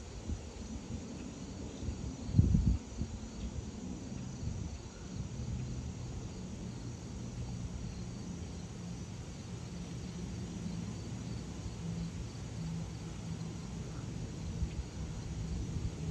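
Distant Airbus A400M Atlas's four turboprop engines droning overhead on approach: a steady low hum with an unchanging pitch. A brief low thump comes about two and a half seconds in.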